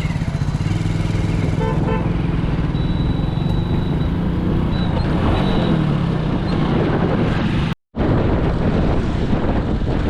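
A motor vehicle's engine running steadily under road and wind noise while riding, with a couple of short horn toots about two seconds in. The sound cuts out for a split second near the end.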